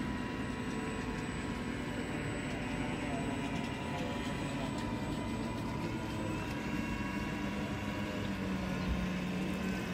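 Motor of a radio-controlled model boat running steadily, a hum of several held tones over a noisy wash, with a low tone growing louder over the last few seconds.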